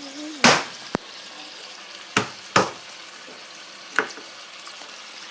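Food sizzling steadily in a hot pan, broken by five sharp, loud knocks: one about half a second in, a light one near one second, two close together a little after two seconds, and one about four seconds in.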